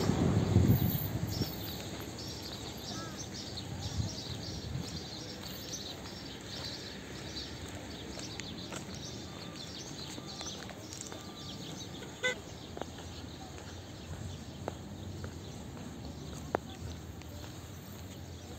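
Outdoor street ambience: a passing vehicle's rumble fades out in the first second or so, then a steady background hum with birds chirping and a few sharp clicks.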